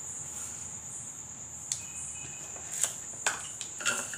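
Crickets trilling steadily at a high pitch in the background, with about four light clicks and taps from a small cup and hand against a steel mixing bowl as salt goes in and mixing begins.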